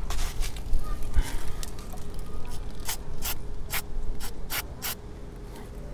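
Aerosol brake and parts cleaner sprayed at a motorcycle's three-piston brake caliper: a longer hiss near the start, then a quick run of about six short sprays, roughly three a second.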